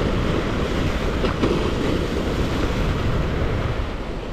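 Steady wind rushing over the microphone, with surf washing against the jetty underneath.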